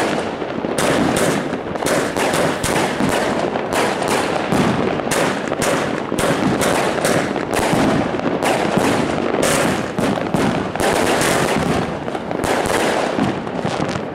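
Zena Herlat Kracherblitz firework cake firing a rapid series of aerial shots: a dense run of bangs and crackles, several a second, that keeps up without a break.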